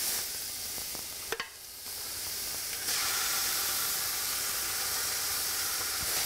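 Minced meat sizzling in hot oil in an aluminium pot as spoonfuls are dropped in. A metal spoon clinks once about a second in, and the sizzling gets louder about three seconds in.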